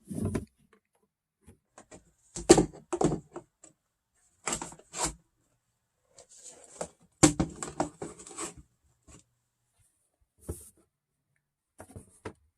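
Handling noise: short knocks, clicks and rattles of objects being picked up and set down, in clusters about two, four and a half and seven seconds in, with a few light taps near the end.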